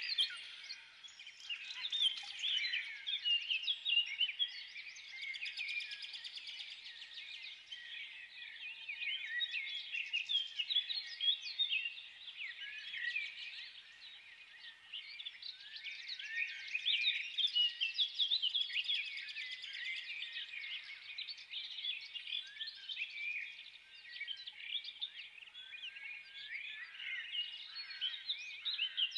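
Many small birds chirping and twittering together, a continuous stream of short overlapping high calls.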